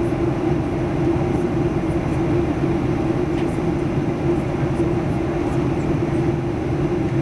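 Steady in-flight cabin noise of a Boeing 737-800 in the air: rushing airflow and engine drone with a constant hum, holding an even level throughout.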